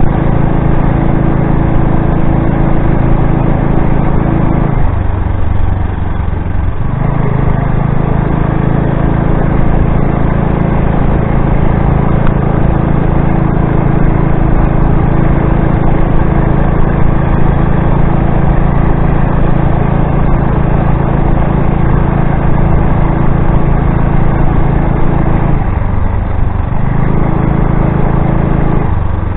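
Small motorized-bicycle engine running steadily while riding. The throttle eases off briefly twice, about five seconds in and near the end, before it picks back up.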